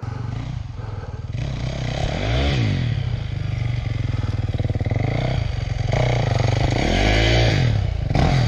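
Dirt bike engine running with several short throttle revs as the bike rides in toward a log hop, getting a little louder as it comes closer.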